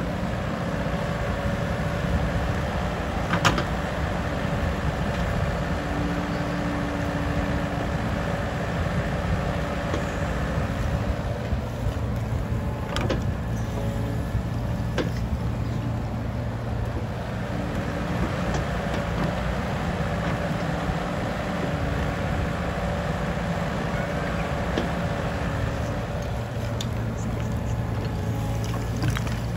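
Komatsu mini excavator's diesel engine running steadily while it digs, with a hum from the working machine that comes and goes. A few sharp knocks stand out, as from the bucket striking debris.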